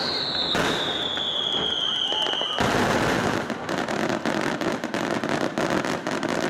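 Aerial fireworks at close range: a high whistle that slides down in pitch ends in a loud bang about two and a half seconds in, followed by dense, rapid crackling from the bursting shells.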